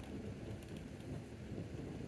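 Thunderstorm: a low, rolling rumble with scattered light ticks of rain.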